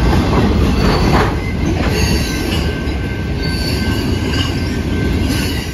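Freight train boxcars rolling past close by: a loud, steady rumble of steel wheels on rail, with high thin wheel squeals coming and going over it.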